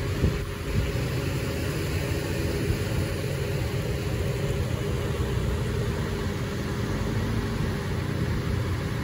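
Vehicle engine idling close by: a steady low rumble with a faint steady hum above it.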